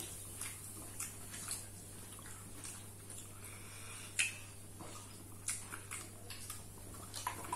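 Scattered faint clicks and taps, the sharpest about four seconds in, over a steady low hum.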